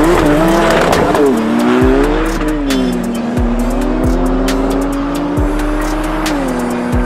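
A car engine revving hard under acceleration, its pitch rising and dropping over the first few seconds, then holding steady. Electronic background music with a deep, regular bass beat plays over it.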